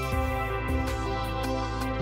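Background music: held chords over a bass line with light percussion.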